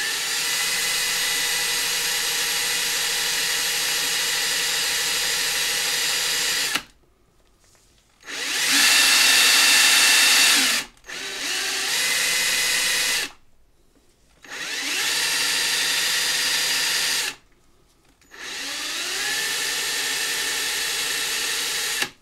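Ryobi ONE+ cordless drill spinning a coin ring on a rubber polishing cone while steel wool is held against the ring's cut edge to smooth it. The motor whines in five runs of a few seconds each, pitch rising as it spins up and cutting off abruptly when the trigger is released.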